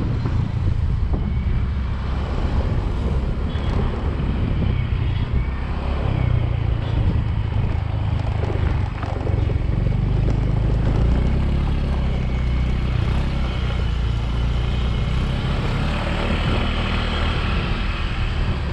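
Motorbike ride heard from the bike itself: the engine's steady running mixed with tyre and road noise and rushing air on the microphone.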